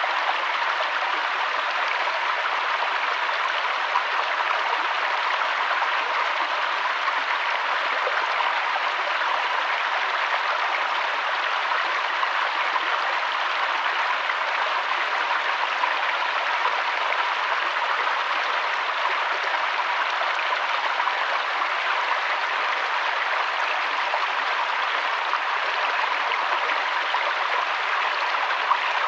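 A river's water flowing and splashing, a steady rushing with a fine texture of small splashes and no pauses.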